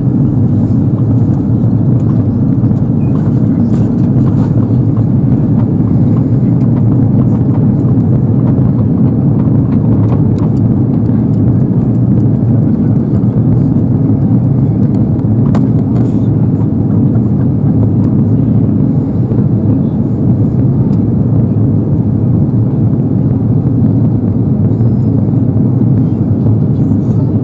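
Steady, loud cabin noise of an Airbus A330-300 in flight, heard inside the cabin at a window seat: engine and airflow noise, recorded distorted.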